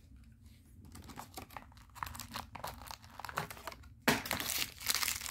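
Small clear plastic parts bag crinkling as it is handled and opened. Scattered faint crackles become a dense, louder crinkling about four seconds in.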